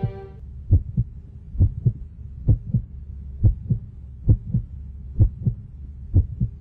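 Heartbeat sound effect: seven slow double thumps (lub-dub), a little under a second apart, over a faint low hum. Music dies away in the first half-second.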